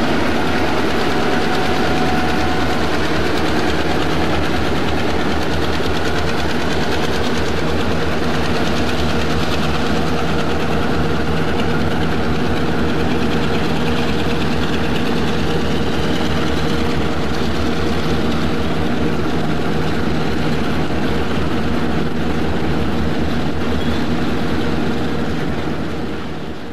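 Diesel-electric locomotives at the head of a loaded coal train working hard as they pull away, a steady heavy engine drone mixed with the rumble of the cars on the rails. It fades out near the end.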